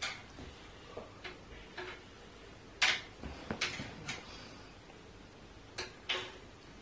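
Irregular light taps and clicks of small hard objects being handled on a child's table, about ten in all, the sharpest about three seconds in.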